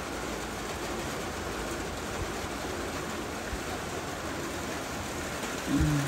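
Steady rain falling, an even hiss. Near the end there is a brief, louder low sound that drops in pitch.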